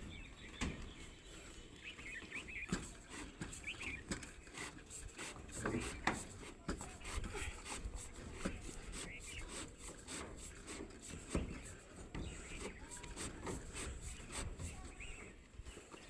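Scattered knocks, clicks and rustling from hands working an electrical conduit pipe and its fitting on a steel rebar mat over plastic sheeting.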